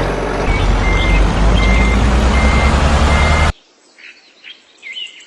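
Loud engine running with a beeper sounding short repeated beeps. It cuts off suddenly about three and a half seconds in, leaving faint bird chirps.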